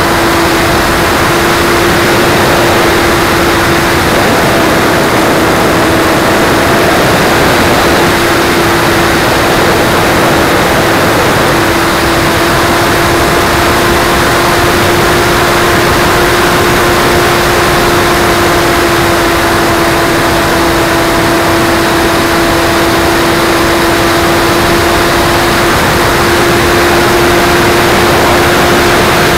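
Onboard sound of an E-Flite Splendor's brushless electric motor and propeller in flight, a steady whine over heavy wind rush on the wing-mounted camera. The motor tone eases off for several seconds early on, as the throttle is cut back during aerobatics, then comes back steady.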